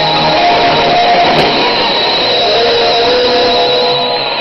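Guitar music received on 6160 kHz shortwave and played through a Sony ICF-2001 receiver's speaker, over a steady hiss of static.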